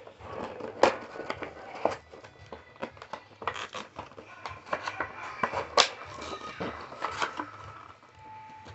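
Plastic and cardboard packaging of a boxed action figure being opened: a series of irregular crinkles, snaps and sharp clicks, the loudest about a second in and just before six seconds.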